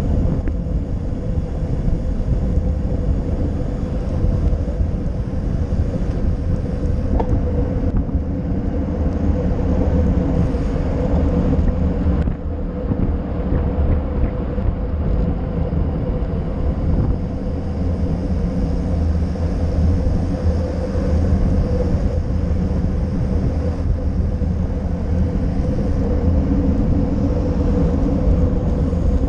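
Wind and road vibration on a handlebar-mounted GoPro Session on a bicycle descending at speed: a loud, steady low rumble with a faint steady tone above it.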